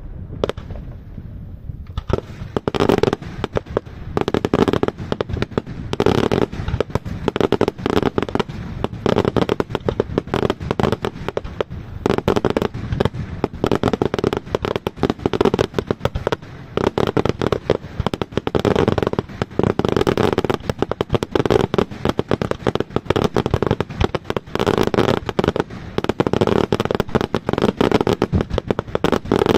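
Daytime fireworks display: a few scattered bangs, then from about two seconds in a dense, continuous rapid-fire barrage of bangs and crackling.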